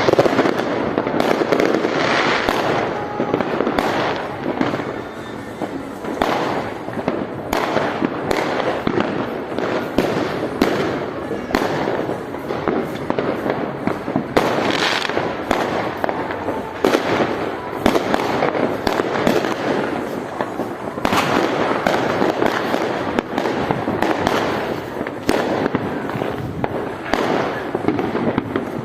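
Fireworks going off without a break: a dense run of bangs and crackles, many a second.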